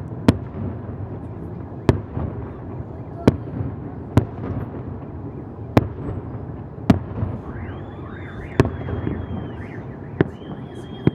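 Aerial firework shells bursting with sharp bangs, about nine in eleven seconds at irregular gaps of one to one and a half seconds, over a steady low rumble. A high wavering tone comes in about eight seconds in and carries on to the end.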